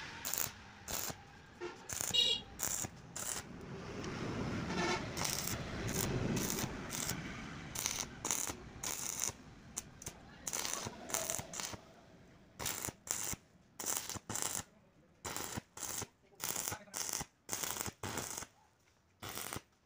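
Stick arc welding on a square steel bar frame: the electrode arc crackles and sputters in many short, stop-start bursts.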